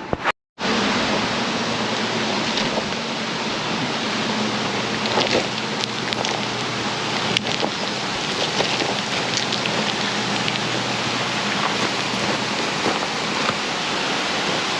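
Creek water rushing steadily, a constant hiss with scattered small splashes, starting after a brief dropout in the first half second.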